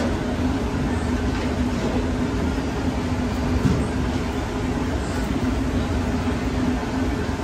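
Steady low rumble and hum of running machinery, with a few faint soft knocks.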